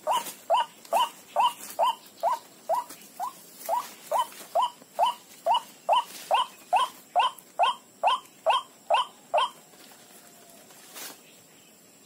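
White-breasted waterhen (ruak-ruak) calling: a rapid, even series of short rising notes, about two a second, that stops abruptly about nine and a half seconds in.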